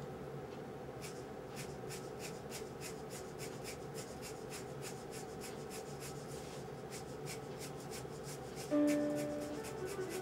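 Graphite pencil scratching on drawing paper in quick, repeated short strokes, each pressed hard at the dark end and lifted toward the light. Near the end, a few sustained musical notes come in over the strokes, louder than the pencil.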